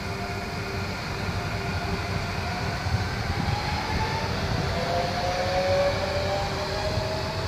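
Z 24500 (TER 2N NG) double-deck electric multiple unit moving past, with a low rumble from the running gear and an electric traction whine that rises in pitch through the second half as it accelerates.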